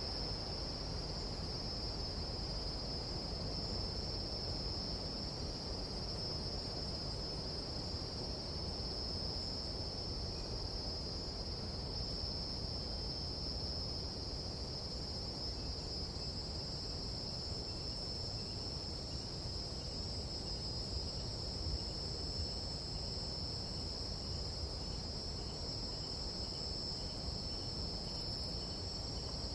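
Nighttime jungle insects trilling in one steady, unbroken high-pitched drone over a low rumbling noise. From about halfway, a faint second call pulses a little more than once a second.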